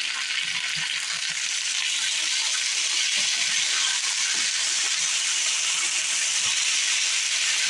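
Sliced potatoes sizzling steadily in hot oil in an open frying pan while a spatula turns them over.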